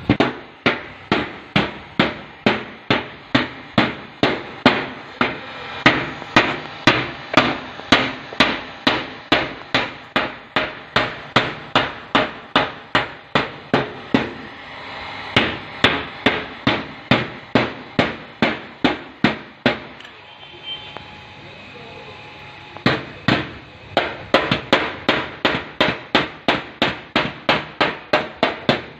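Hammer tapping steadily on the sheet-metal fender of a 2018 Kia Sportage, about three sharp strikes a second, with a pause of a few seconds about two-thirds of the way through. This is cold bodywork: the dented fender is being hammered back into shape.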